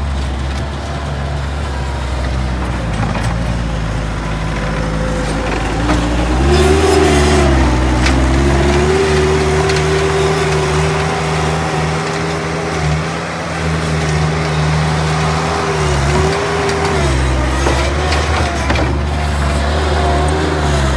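Bobcat track skid steer's diesel engine running, throttled up about six seconds in and held at higher revs with a few brief dips, then dropping back to a lower speed and starting to rise again near the end.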